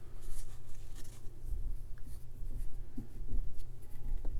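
Close handling sounds of a calabash pipe: fingers rubbing and scratching at a rolled-up pipe cleaner as it is worked into the pipe's cup, with a few light clicks.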